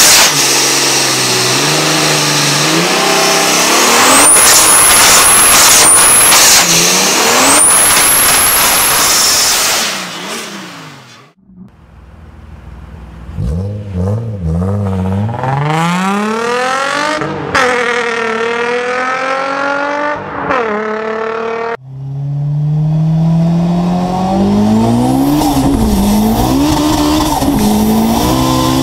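Three car sounds in a row. First a drift car does a burnout, its engine held at high revs while the tyres squeal. After a brief drop, a Nissan 350Z's V6 revs and pulls in several rising and falling sweeps. In the last part, a car's engine pulls hard at full throttle, heard from inside the cabin, its pitch climbing steadily with speed.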